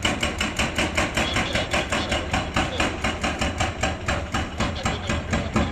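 Demolition hammer pounding concrete in a fast, even rhythm of about five blows a second, over the low drone of a running engine.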